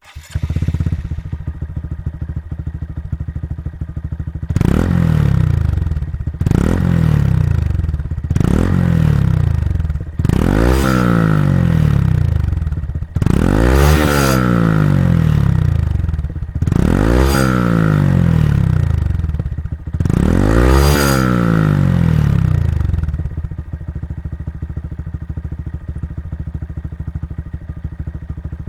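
Honda Monkey 125's single-cylinder engine idling and blipped seven times, each rev rising and falling back to idle, the fourth and fifth held a little longer, then idling steadily.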